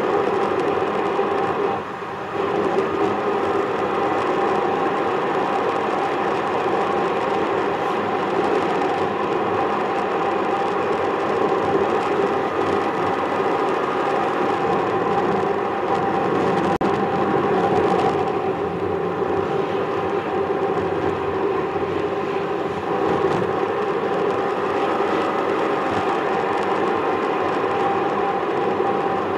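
Steady road drone of a moving car heard from inside the cabin: tyre and engine noise picked up by the dashcam, with a short dip about two seconds in.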